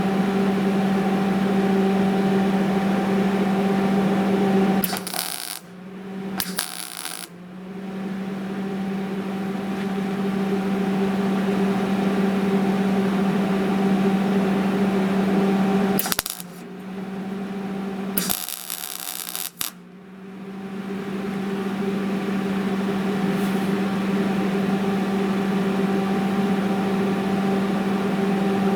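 Four short bursts of welding arc crackle from a MIG welder making spot welds on a steel mounting tab, about five, six and a half, sixteen and eighteen seconds in, the last one the longest. A steady hum runs under them.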